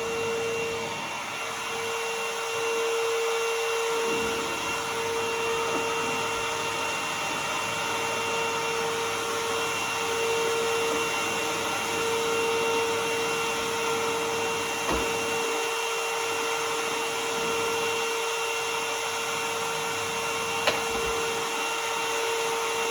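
Bissell CleanView Helix bagless vacuum cleaner running steadily, its motor holding one constant tone over a steady rush of air. Two brief knocks come through, about halfway through and again near the end.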